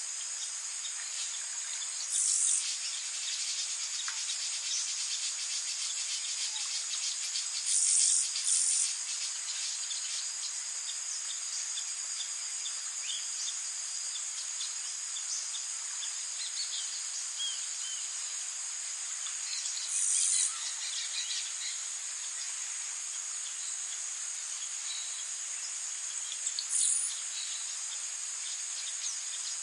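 Rainforest ambience of a steady, high-pitched insect chorus, with short, louder insect buzzes five times and faint bird chirps scattered through it.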